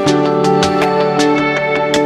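Instrumental background music: steady held tones under short plucked notes, about four a second.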